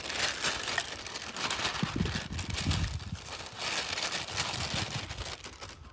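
Clear plastic bag crinkling and rustling as it is handled and opened, with a few dull bumps about two to three seconds in.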